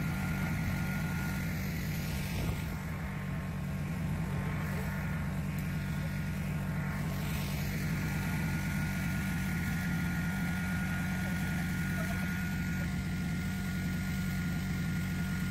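Small engine of a lawn mower running steadily at constant speed: a low, even hum with a thin steady whine above it.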